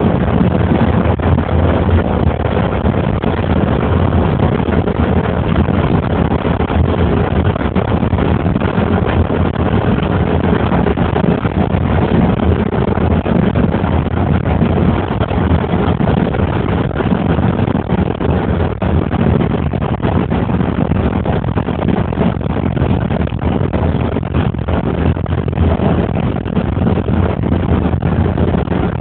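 Steady low road and engine noise of a moving vehicle, heard from on board as it drives along.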